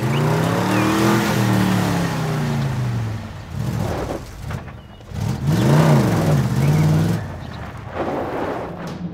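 Vehicle engine sound effect revving up and back down twice, at the start and again about five seconds in, laid over a toy police truck being pushed along.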